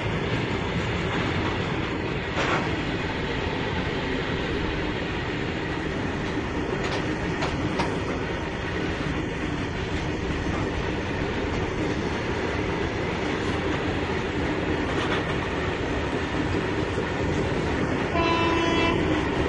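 Goods train of BOXN covered wagons rolling past behind a WAG-7 electric locomotive: a steady rumble with the clatter of wheels over rail joints and a few sharp knocks. Near the end a locomotive horn sounds one short blast.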